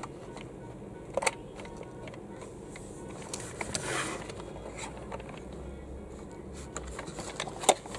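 Hands working a plastic toy capsule, an LOL Surprise Under Wraps, with scattered small plastic clicks and rustling as its code buttons are tried. The sharpest clicks come about a second in and just before the end.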